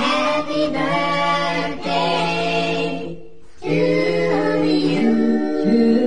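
Background music: an a cappella vocal song, voices singing held notes, with a brief break about three seconds in.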